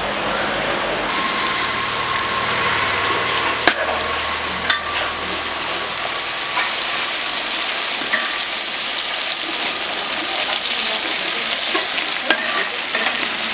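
Masala-coated fish with curry leaves frying in a wide pan of hot oil, sizzling steadily, with a few sharp clinks of a steel spatula against the pan.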